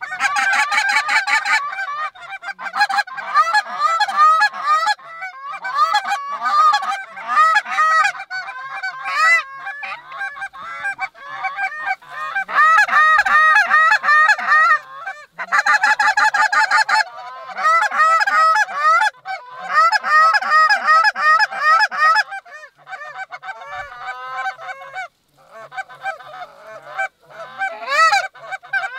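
A large flock of Canada geese honking as it flies over, many calls overlapping in a continuous loud chorus with brief lulls.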